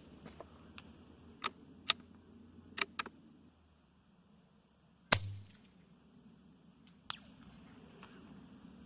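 A few sharp clicks, then about five seconds in a single suppressed shot from a Savage Mark II .22LR bolt-action rifle firing subsonic ammunition: a short sharp crack with a low thump and no supersonic snap. One more click follows about two seconds later.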